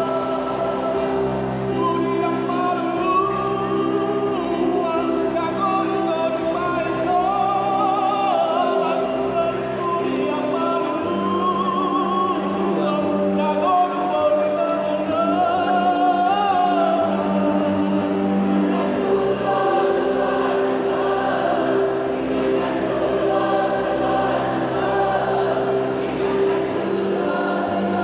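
Choir singing a song, the melody rising and falling over held low notes that shift to new chords every several seconds.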